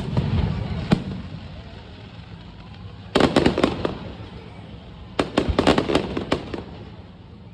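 Fireworks going off: a sharp bang, another about a second later, then two bursts of rapid crackling pops a few seconds in and again near the middle-to-end.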